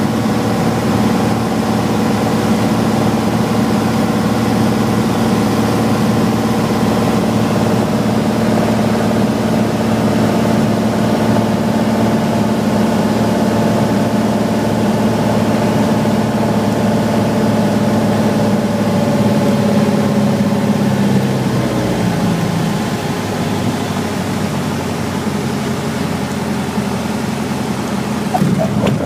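Light airplane's piston engine and propeller heard from inside the cockpit, running steadily on final approach. About twenty seconds in, the pitch drops as power is pulled back, and near the end there is a brief sharp sound, likely the wheels touching down on the runway.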